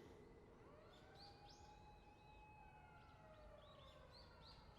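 Very faint wailing siren, its pitch slowly rising and falling, in near silence.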